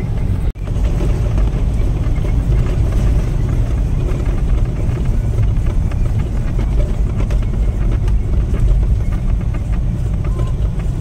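Steady engine and road noise inside the cabin of a moving car, strongest in the low end. It cuts out for an instant about half a second in.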